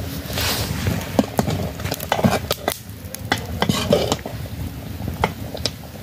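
Metal ladle stirring boiling rice in a metal pot, with irregular clinks and scrapes as it knocks against the pot's sides.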